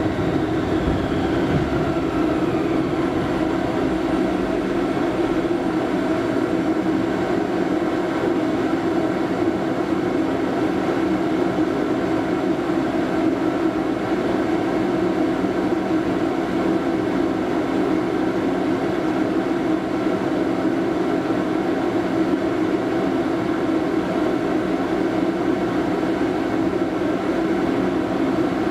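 Running noise heard inside a Toyama Chitetsu 0600-type (Portram) low-floor tram moving along its line: a steady rumble of wheels on rail with a hum from the car's running gear.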